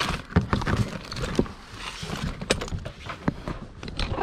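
Hands rummaging through a plastic storage tote: irregular rustling and clicks as items, paper hang tags and packaging are shuffled and lifted out.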